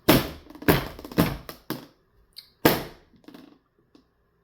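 A run of sharp crinkling, crunching handling noises close to the microphone: several quick ones in the first two seconds, a loud one about two and a half seconds in, then a few faint ones.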